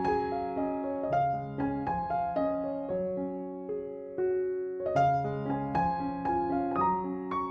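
Background piano music, a gentle flowing melody over held bass notes.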